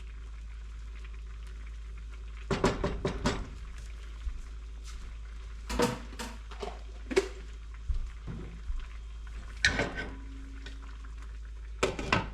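Kitchen handling at the stove: a handful of short knocks and clatters of utensils, pot and containers, in about five separate bunches, over a steady low hum.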